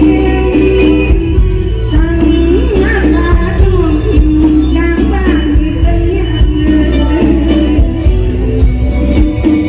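Live Isan mor lam music: a woman sings into a microphone over an amplified band with heavy bass and drums.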